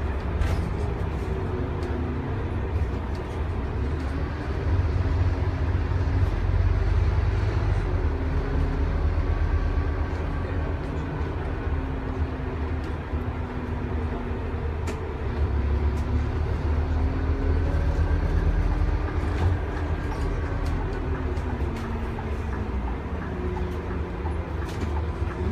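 Diesel engine and drivetrain of a Scania N230UD double-decker bus, heard from inside the lower deck as the bus drives along. Its steady low drone rises in pitch partway through as the bus pulls away, then falls again near the end as it slows.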